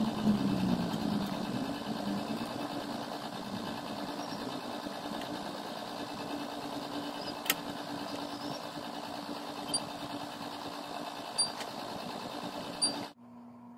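Steady machine whirring with a low hum, broken by a few light clicks in the second half; it cuts off suddenly near the end.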